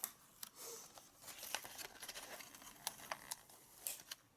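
Faint rustling and scattered light clicks of a Blu-ray steelbook and its packaging being handled.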